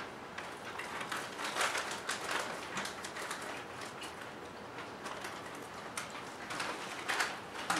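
Faint, irregular crinkling of a clear plastic popcorn bag as hands reach in and pull out candy-glazed cinnamon popcorn, with crunchy chewing toward the end.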